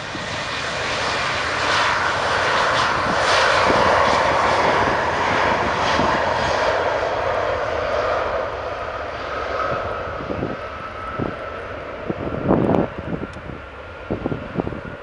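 Boeing 737-700's twin CFM56-7B turbofans at takeoff thrust as the jet rolls down the runway and away. The roar builds over the first few seconds, then fades, with a thin fan whine standing out past the middle. Wind thumps on the microphone near the end.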